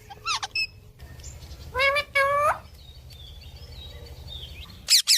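Pet parrot vocalising: a short call near the start, two longer drawn-out calls about two seconds in, then a quick run of shrill squawks near the end.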